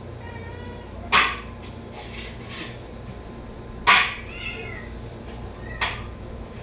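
A cat meowing in several short calls, the loudest about a second in and about four seconds in, a smaller one near the end, with fainter calls in between.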